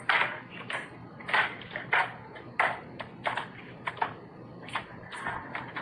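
A string of short, sharp clicks or knocks, roughly one to two a second, uneven in loudness.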